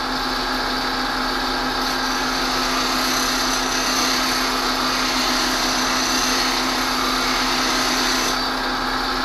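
Bench grinder running with a steady motor hum while a high-speed steel plane iron is pressed against its coarse wheel, giving a continuous grinding hiss of steel on the stone. The hiss eases off near the end while the motor hum carries on.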